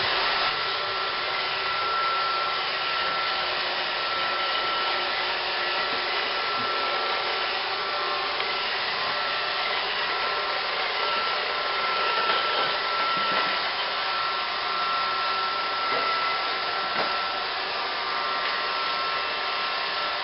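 Roomba robot vacuum running steadily: an even whirring motor noise, with a thin high whine that fades in and out.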